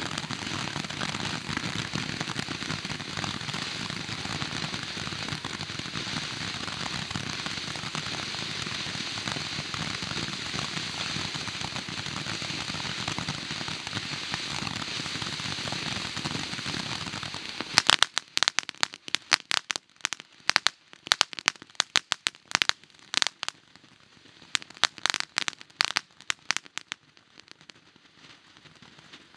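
A Red Rhino "Puppy Love" ground fountain firework spraying with a steady hiss. About eighteen seconds in, it switches to a crackling stage: many sharp rapid pops that thin out near the end.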